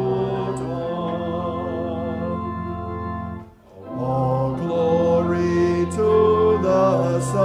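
Organ accompanying voices singing a hymn, with held bass notes under the sung melody. The music breaks off briefly about halfway through, then the next line begins.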